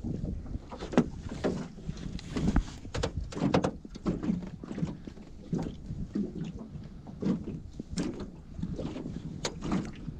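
Irregular knocks, taps and thumps against a boat's hull and deck, a dozen or more at uneven spacing, over a low background rumble.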